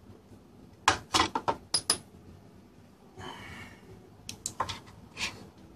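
Handling noise from an opened plastic hard-drive dock case: a run of sharp clicks and knocks about a second in, a short scrape around three seconds in, and a few more knocks near the end as it is moved about and set down on a wooden desk.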